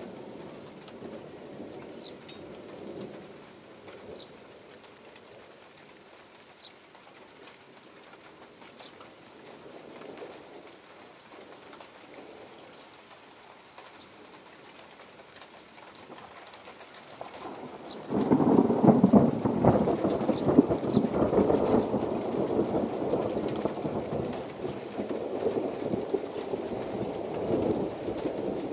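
Steady rain during a thunderstorm. About two-thirds of the way in, a sudden loud peal of thunder breaks out and keeps rumbling, rising and falling. Faint sparrow chirps come through now and then.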